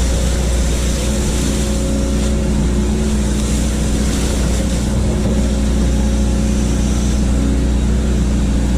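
Hitachi hydraulic excavator's diesel engine running steadily at a constant pitch, with a strong low hum.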